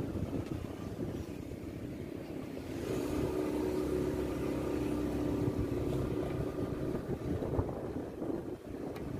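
A vehicle engine running, a low rumble throughout with a steady hum that comes in about three seconds in and fades about seven seconds in.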